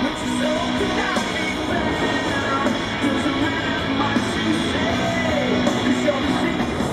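Rock music with a singing voice and guitar over a steady beat.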